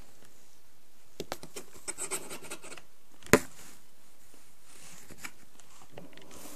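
Scratching and rubbing on a cardboard box, with a few light clicks and one sharp knock a little over three seconds in.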